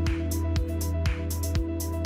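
Electronic background music with a steady beat, about two beats a second, over held sustained notes.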